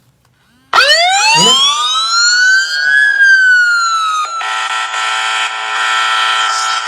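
A mobile phone's anti-theft alarm app sounding a siren through the phone's speaker, set off by the phone being picked up in motion-detection mode. It starts about a second in, rises in pitch, falls slowly, then switches to a steady horn-like tone about four and a half seconds in.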